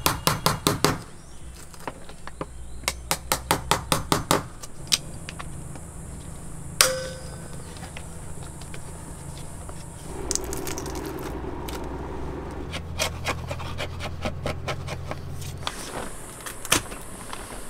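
Claw hammer driving a chisel under a wooden grab rail on a boat deck: two quick runs of sharp blows, about five a second, then a single ringing metal clang about seven seconds in. After that a steady low hum with scattered clicks and a few last knocks near the end.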